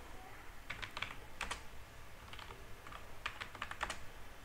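Computer keyboard being typed on: light key clicks in short, irregular runs of a few strokes each.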